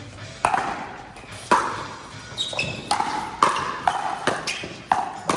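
Pickleball rally: sharp, ringing pops of paddles hitting the hard plastic ball, with ball bounces on the court. There are about seven hits in quick, irregular succession.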